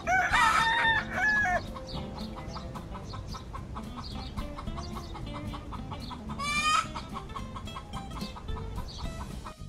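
Rooster-crowing sound effect at the start, followed about six and a half seconds in by a short rising hen squawk, over soft background music.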